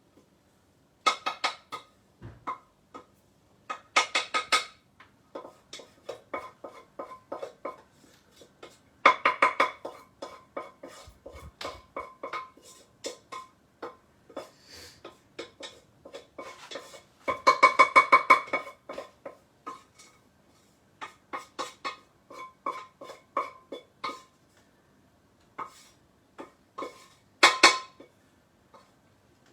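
A spoon repeatedly clinking and scraping against a pot and bowl while rice is served out: quick runs of sharp clinks, several ringing on with a metallic tone.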